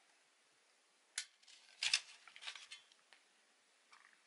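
A few light clicks and taps from handling small parts on a workbench: one sharp click about a second in, a louder cluster near two seconds, then faint rustling and a last soft tick near the end.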